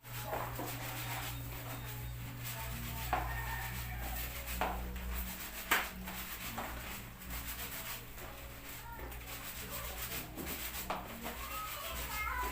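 Laundry being scrubbed by hand: wet fabric rubbed against itself, with a few sharp knocks and a low steady hum underneath.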